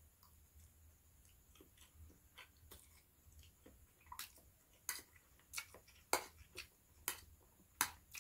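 Close-up eating sounds of someone chewing a mouthful of fried noodles and rice: soft, faint chewing at first, then from about four seconds in a run of sharp, wet mouth smacks about every two-thirds of a second.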